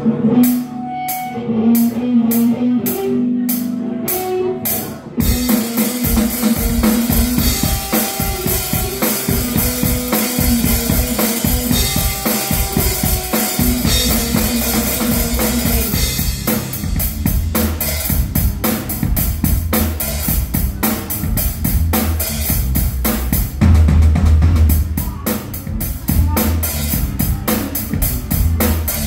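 Live band playing with a drum kit and guitar: a bass line under steady cymbal taps about twice a second, then the full kit comes in about five seconds in with kick drum, snare and cymbals, its low end getting heavier over the second half.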